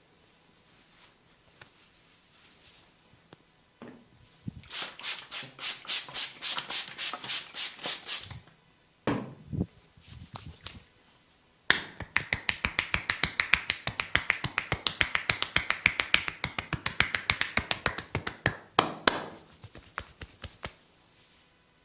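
A barber's hands tapping rapidly on a head during a head massage, a crisp clicking rhythm of about five strikes a second. It comes in two runs, a shorter one a few seconds in and a longer, denser one from about twelve seconds in, with a few softer knocks between them.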